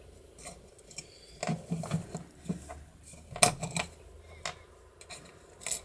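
Scattered light metallic clicks and taps as a small wire spring and parts are fitted inside an opened mortise latch lock's steel case, the sharpest click about three and a half seconds in and another near the end.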